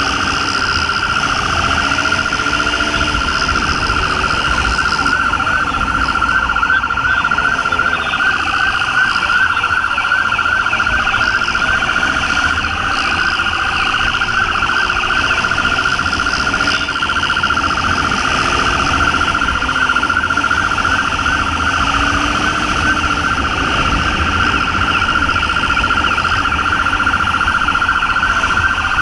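Police motorcycle siren sounding continuously in a fast, steady warble, with wind rush and motorcycle engine noise underneath.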